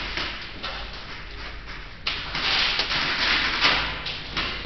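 Airsoft gunfire and BB hits in a plywood-walled indoor arena: a run of sharp cracks, then a louder, denser stretch of rapid noise from about two seconds in for nearly two seconds.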